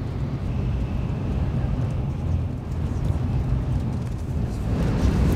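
Steady low rumble inside a Shinkansen bullet train's cabin while it runs at speed, growing a little louder and fuller near the end.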